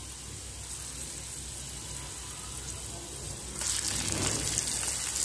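Sliced onions frying in hot ghee in a frying pan, a steady sizzle. About three and a half seconds in, the sizzle turns suddenly louder as chopped tomatoes go into the hot fat.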